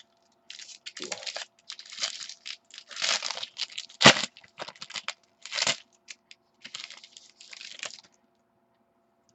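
Trading-card pack wrappers being torn open and crinkled by hand: a run of irregular rustling and tearing bursts, with one sharp crack about four seconds in.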